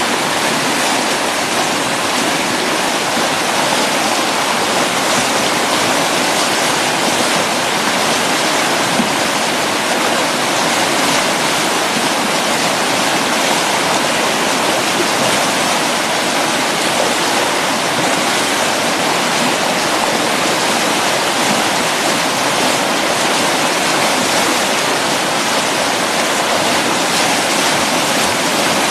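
Loud, steady rush of whitewater pouring through a river rapid, an even roar of churning water.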